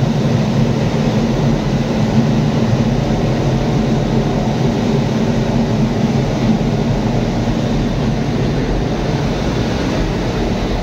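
Diesel-electric locomotive's diesel engine running steadily at its top speed of about 1070 rpm during a test run. It is a loud, even drone with no change in pitch.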